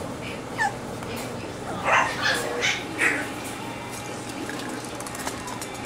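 Cockapoo puppies yipping: one short falling yip about half a second in, then a quick run of four or five high yips and barks about two seconds in.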